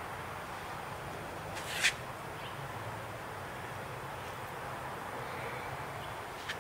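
Steady outdoor hiss with a low hum, broken by one short, sharp crunch about two seconds in and a fainter click near the end.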